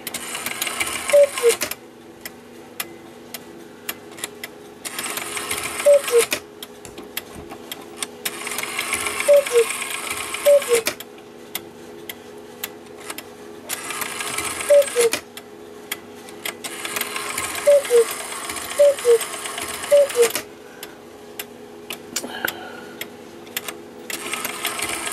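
Cuckoo clock calling through its newly re-leathered bellows and two whistles. The call is a falling two-note "cuckoo", about eight times in irregular groups, each group with a rushing whir as the mechanism runs, over the steady ticking of the movement.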